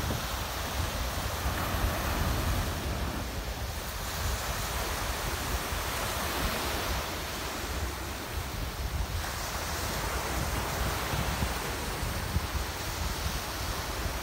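Sea surf: small waves breaking and washing up a sandy shore in swells every few seconds, with wind rumbling on the microphone.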